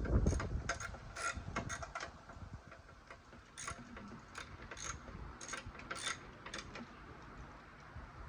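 Socket ratchet wrench clicking in short irregular runs as an engine mount bolt is turned out, the clicks thinning out near the end.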